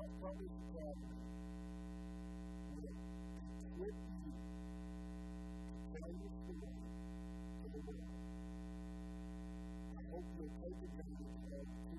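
Steady electrical mains hum, a low buzz made of several fixed tones that never change, with a man's voice very faint beneath it in short stretches.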